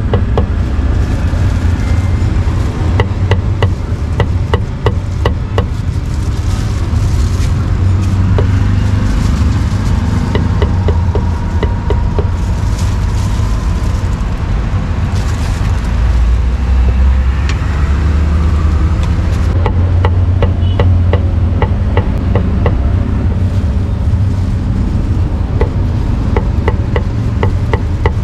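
Heavy meat cleaver chopping cooked pork and duck on a round wooden chopping block: runs of sharp knocks, a few a second, over a steady low rumble.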